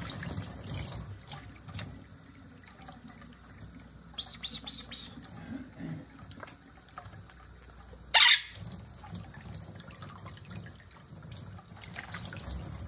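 Quaker parrot (monk parakeet) bathing in a plate of water under a thin running faucet stream: the steady trickle of tap water with bouts of wing-flapping splashes, busiest at the start and near the end. One short, loud, sharp sound comes about eight seconds in.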